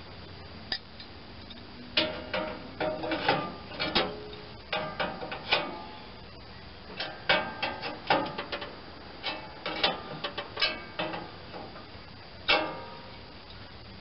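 Steel auger spiral of a snowblower being hammered straight: sharp, ringing metal-on-metal strikes in quick clusters of several blows, ending with one loud single blow near the end.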